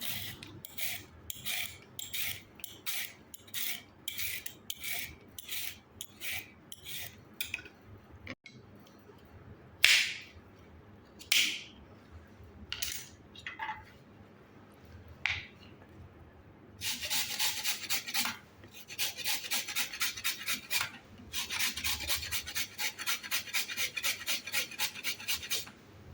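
Carrots being grated on a hand grater, in repeated rasping strokes. The strokes come about twice a second at first, then a few slower, louder ones, then a quicker run of strokes near the end.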